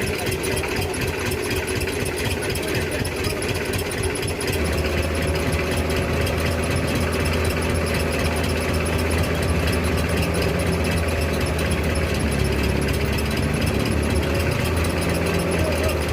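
Diesel truck engine running hard under load with a clattering drone, getting louder about four seconds in.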